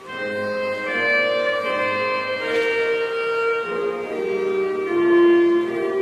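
Children's choir singing a slow hymn melody in held notes that change about once a second, as picked up by a video camera's microphone in the balcony.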